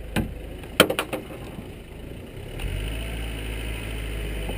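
A few sharp knocks in the first second. Then, about two and a half seconds in, a race car's engine settles into a low, steady idle.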